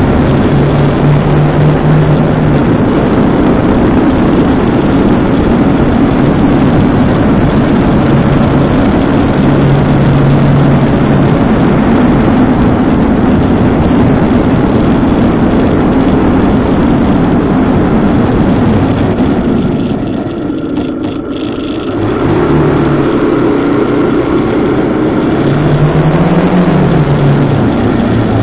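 Motorcycle ride heard through the bike's own mirror-mounted camera: a steady rush of wind and road noise over the engine, whose note rises and falls with speed. The noise eases for a couple of seconds about two-thirds of the way through, then the engine picks up again.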